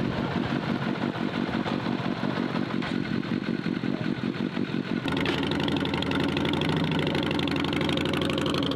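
Motorcycle engine idling with a pulsing, uneven firing beat. About five seconds in, a fuller, lower-pitched engine sound takes over and runs steadily.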